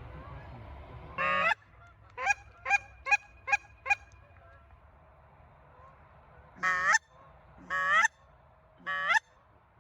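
Canada geese honking close by: one long honk, then five quick clucks in a row, then three more long honks about a second apart.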